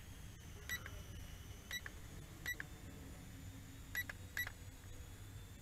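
Five short, high electronic beeps at uneven intervals, over a steady low rumble.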